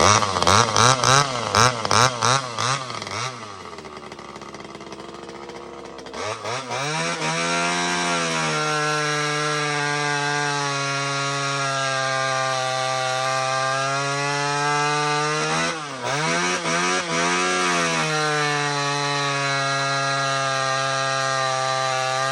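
Two-stroke top-handle chainsaw with a custom exhaust pipe: a few quick throttle blips, then idling for a few seconds before climbing to steady high revs that hold, with a short dip and a few blips about two-thirds of the way through, as it makes cuts in wood.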